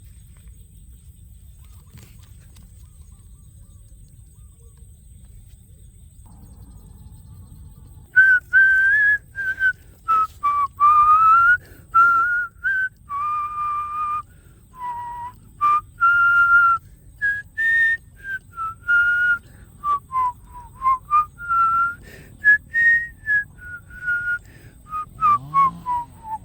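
A faint low rumble, then about eight seconds in a person starts whistling a tune: one clear note at a time, hopping and sliding between pitches.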